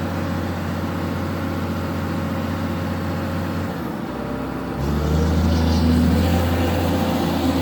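Cat 320 hydraulic excavator's diesel engine running steadily, then getting louder a little before five seconds in as it comes under working load.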